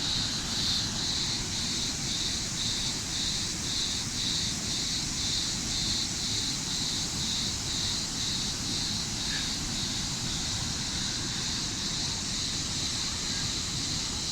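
Steady rushing of the Manavgat waterfall, with a high buzz over it that pulses evenly a little under twice a second.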